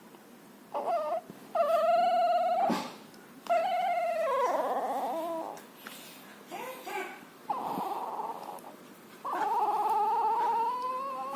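Puppy snoring with squeaky, whistling pitched tones: about six drawn-out squeals, each up to a second or two long, some wavering up and down in pitch, with short pauses between.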